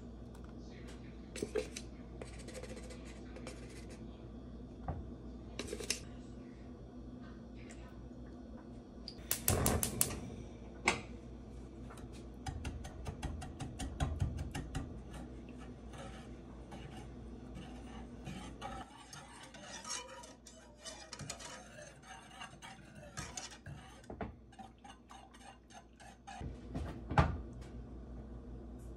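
Wire whisk clicking and scraping against a saucepan as milk, egg yolk and cornstarch are whisked into egg-tart custard, with a spoon tapping the pan and a few louder knocks, the loudest near the end.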